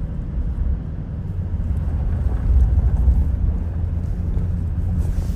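Steady low rumble of a car's engine and tyres heard from inside the cabin while driving up a mountain road.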